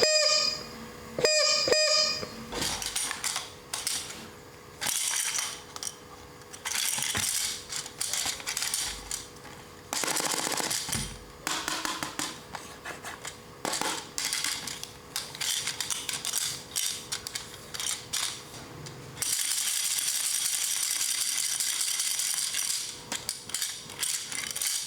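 Toy mini vending machine being played with: a few electronic beeps in the first two seconds, then repeated plastic clicks, rattles and coin-like clinks. A steady rushing sound runs for about five seconds near the end.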